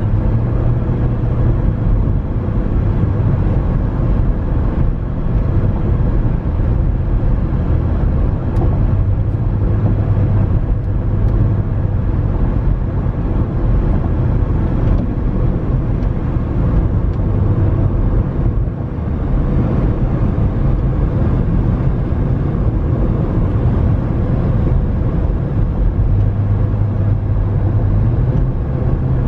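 Car in motion: steady drone of engine and tyre noise, strongest in the low range, with no sharp events.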